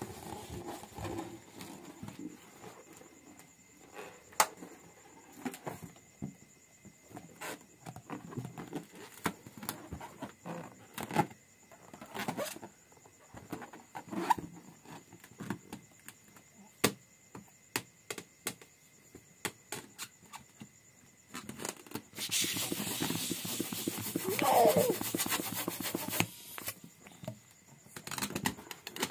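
Inflated latex balloons being handled and pressed by hand, giving scattered short rubbing squeaks and taps. About 22 seconds in a louder stretch of rustling begins, with a brief wavering squeak in the middle of it.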